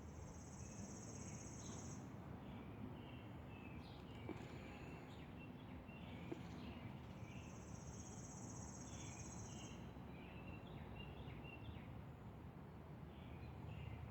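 Small songbirds chirping with short, scattered calls, faint over a steady hiss. A high, buzzy trill lasting about two seconds sounds twice: at the start and again about seven seconds in.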